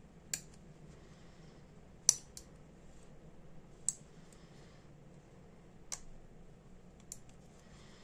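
Steel dental pick clicking and scraping against the metal of a Ronson Premier butane lighter while it probes the lighter's small metal gas filter: about six sharp, light metallic clicks at uneven intervals, the loudest about two seconds in.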